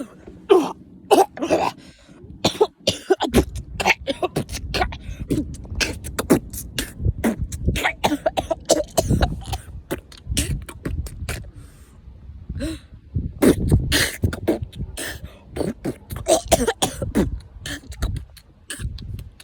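A person in a long fit of coughing and choking: rapid sputtering coughs, gasps and strained voice sounds in quick succession, easing briefly a couple of times. It is the kind of fit that follows a held-in cough.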